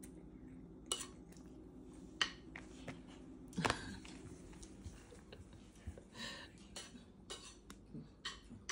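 A few scattered light knocks and clicks of a baby's hands slapping and grabbing at food in a divided plate on the table, the loudest about three and a half seconds in.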